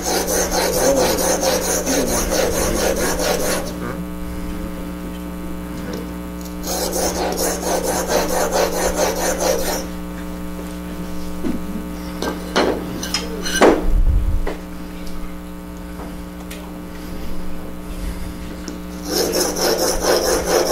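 Steel blade in a honing guide scraped back and forth on a sharpening stone in rapid strokes, working a really rough edge. The strokes come in three spells of a few seconds each. Between them a steady hum runs and a few knocks sound.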